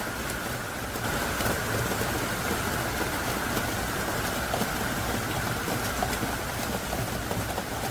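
Heavy rain pouring down steadily, growing a little louder about a second in.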